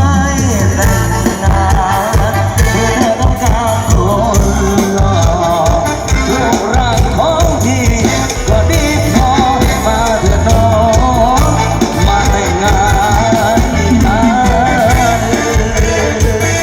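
Loud music with a singing voice and a heavy, pulsing bass, played through a PA sound system whose four bass cabinets are driven by an SAE PXM10X power amplifier.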